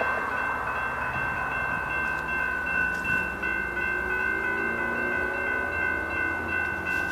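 Railroad grade-crossing warning bell ringing steadily, with a BNSF freight locomotive's horn sounding faintly in the distance from about halfway in.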